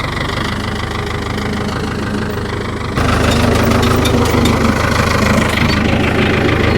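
Tractor engine running steadily at idle, suddenly louder from about three seconds in.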